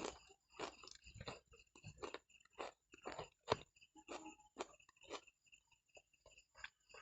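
A person chewing raw onion: quiet, crisp crunches at about two a second.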